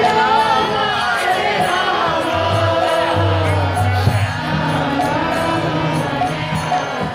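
Devotional singing or chanting with a wavering melodic line, amplified over stage loudspeakers. A steady low drone comes and goes underneath.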